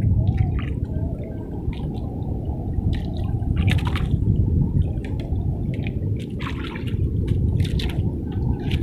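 Seawater sloshing and splashing at the shoreline, a continuous low wash with short irregular splashes.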